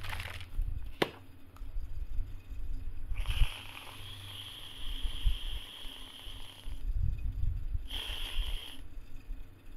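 Aerosol whipped-cream can spraying: a steady hiss for about four seconds, then a second, shorter burst of about a second. A sharp click comes about a second in.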